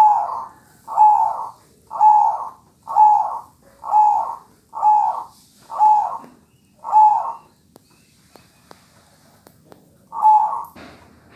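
Zebra dove (perkutut) singing its cooing song: a run of eight coos at about one a second, a pause of about three seconds, then the coos start again near the end.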